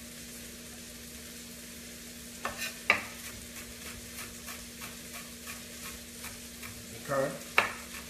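Chef's knife mincing red onion on a wooden cutting board: after a couple of seconds a run of quick chops starts, about three a second, with a couple of harder strikes. A steady low hum runs underneath.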